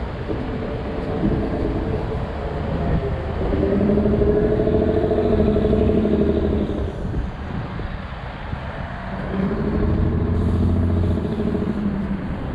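Road traffic passing close by: motor vehicle engines swell and fade twice, the first pass about four seconds in and the second about ten seconds in, over a steady low rumble.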